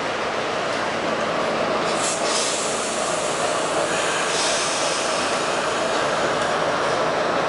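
R68 subway car running through the tunnel, heard from inside the car: steady noise of wheels on rails, with a brief high hiss about two seconds in and more hiss from about halfway through.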